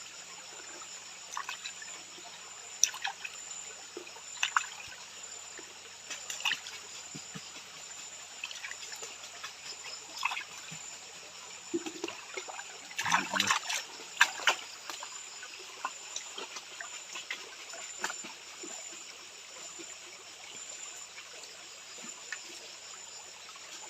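Water trickling and splashing in a gold pan being swirled in a shallow stream. Scattered drips and splashes come through, with a busier run of splashes about halfway through.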